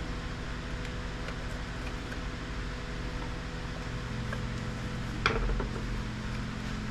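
Steady mechanical hum, like a running fan, with a single sharp click about five seconds in from a metal pick prying at a plastic docking-station case.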